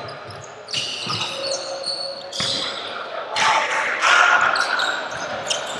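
Basketball game sounds: the ball bouncing on the court, mixed with several short, high squeaking tones that start suddenly, about a second in, at two and a half seconds and at three and a half seconds.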